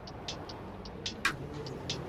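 Quiet background music with light, sharp clicking percussion, several ticks a second in an uneven pattern.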